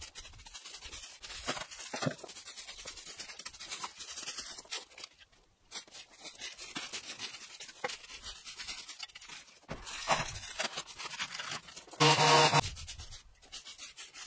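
Garden rake scratching and dragging through dry leaf litter and twigs in irregular strokes, with a louder clatter about twelve seconds in.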